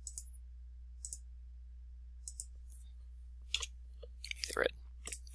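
Computer mouse clicking a number of times at irregular intervals, over a steady low hum.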